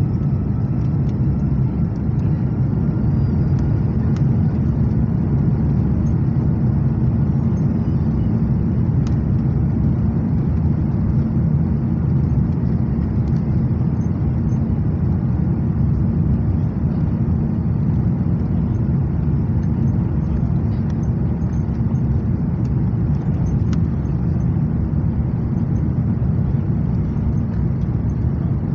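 Steady low rumble of an Airbus A330's engines and airflow, heard inside the passenger cabin.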